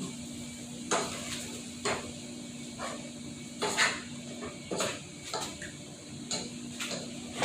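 Dishes and utensils clinking and knocking about once a second, over a steady low hum from a microwave oven running.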